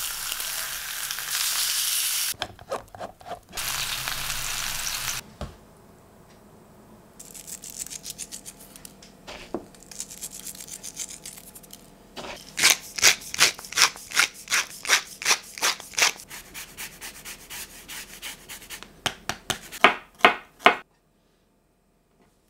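Pork loin steaks sizzling in a grill pan for the first few seconds. Then seasoning the raw steaks: a run of even, crisp crackles, about four a second, as sea salt flakes go on, with a few louder clicks near the end.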